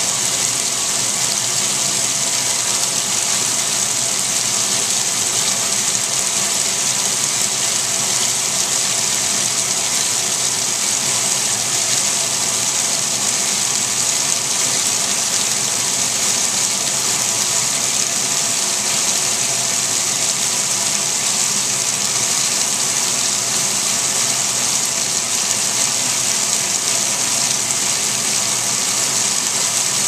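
Top-loading washing machine filling: a stream of water gushing steadily from the fill spout into the tub, splashing onto wet clothes and rising water.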